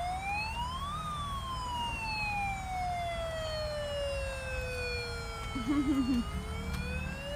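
Toy bubble fire truck's electronic siren wailing: the pitch peaks about a second in, falls slowly for about five seconds, then starts rising again near the end.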